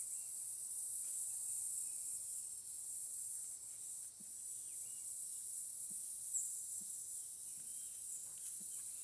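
Steady, high-pitched chorus of insects, crickets or cicadas, trilling without a break.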